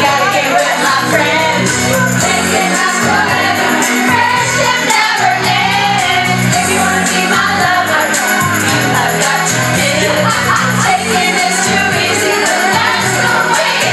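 Karaoke: a group of women singing along into microphones over a pop backing track.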